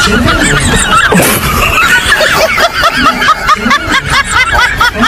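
High-pitched snickering laughter running on without a break, its pitch wobbling up and down several times a second.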